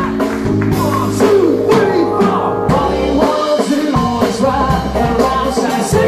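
Live rock band playing: electric guitar with bending notes over a drum kit and sustained low notes.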